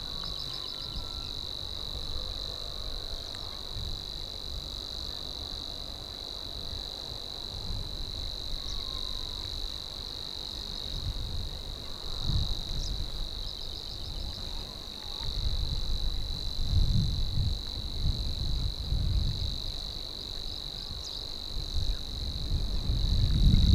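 Savi's warbler singing its reeling song: one continuous, even, insect-like buzz that does not break. A low rumbling noise comes and goes beneath it and is strongest in the second half.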